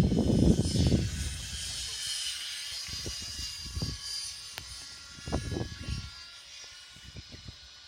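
GAUI NX4 radio-controlled helicopter whining in flight, a steady high-pitched whine of motor and rotor. Gusts of strong wind rumble on the microphone, heaviest for the first second and again in short blasts later.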